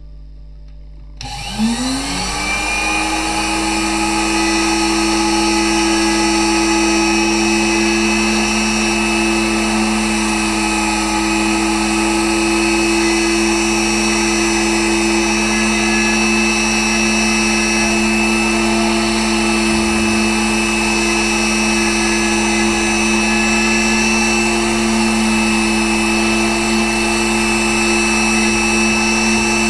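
Pantograph engraving machine's spindle motor switching on about a second in, its whine rising quickly to full speed, then running steadily at a high pitch while the cutter engraves into poplar wood.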